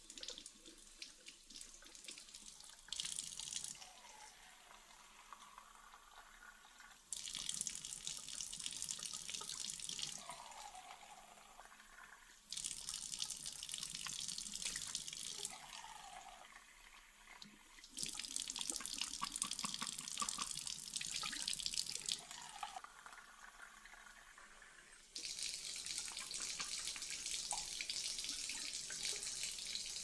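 Kitchen tap water running over and through a Dyson Micro 1.5kg vacuum's filter held under the stream, splashing into the sink. The splashing grows louder and softer in turns every few seconds as the filter is moved under the water.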